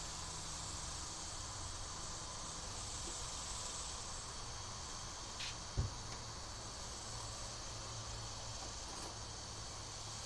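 Steady high-pitched insect chorus with a low hum beneath it, and a single short knock about six seconds in.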